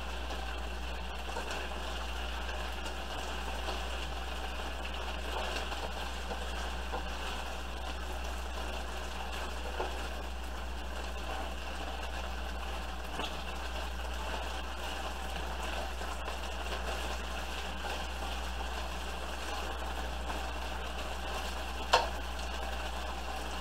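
Chunks of chuck roast sizzling steadily as they sear in a skillet, over a low steady hum, with one sharp tap near the end.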